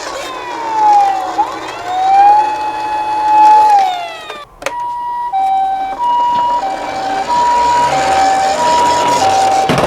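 Emergency sirens: a wailing siren tone that falls, rises and holds. After a click about halfway, it changes to an ambulance's two-tone hi-lo siren, switching between a higher and a lower pitch about every two-thirds of a second.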